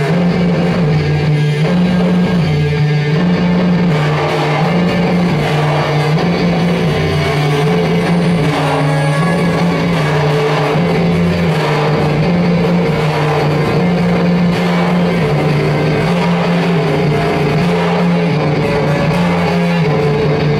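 Loud live music: a low bass figure rocks steadily between two notes under a dense, noisy wash of sound.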